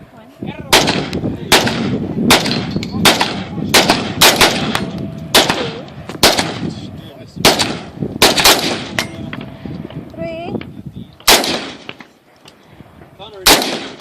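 Colt AR-15 rifle firing about a dozen single shots in quick succession, the first eight at a steady pace of just over one a second, the rest with longer gaps between them. Each shot is sharp and leaves a short echoing tail.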